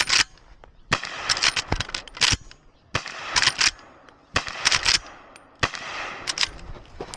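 Henry Big Boy X lever-action rifle firing .38 Special rounds in a fast string, with a shot about every second. Each report rings out briefly after it.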